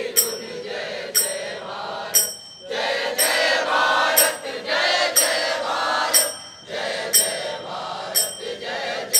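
A group of men singing a Hindi patriotic song together in unison. A sharp metallic clink is struck about once a second, keeping the beat.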